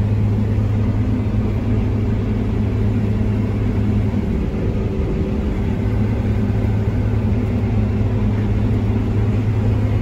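Steady low drone of a New Holland combine harvester heard from inside its cab, engine and threshing machinery running as it picks up windrowed canola with a pickup front. A strong constant hum sits under a rumbling wash of machine noise.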